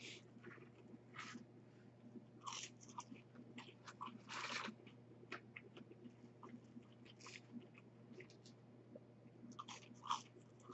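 Faint chewing and crunching from a person eating thick crinkle-cut fries and a burger, coming in short scattered bursts.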